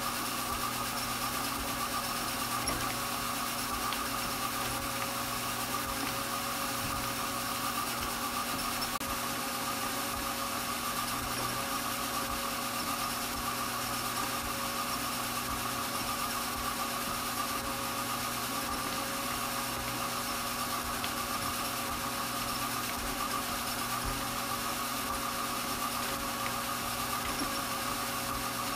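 Strauch Mad Batt'r electric drum carder running steadily at its maximum speed, an even motor hum.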